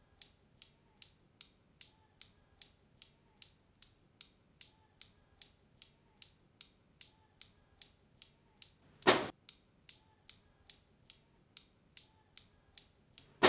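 Faint, steady mechanical ticking, about two and a half ticks a second. It is broken by a loud sudden hit with a brief swell about nine seconds in and a second sharp hit right at the end.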